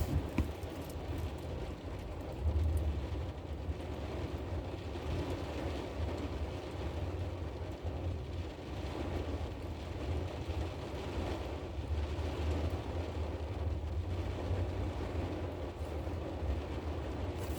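Steady low rumble of vehicle engine and traffic noise, swelling briefly about two and a half seconds in.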